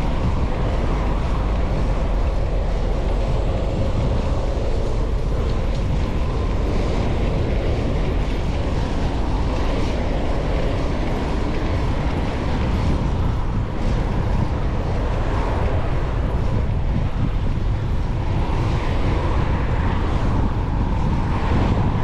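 Steady wind noise buffeting the microphone of a camera riding on a moving bicycle, over the sound of city road traffic.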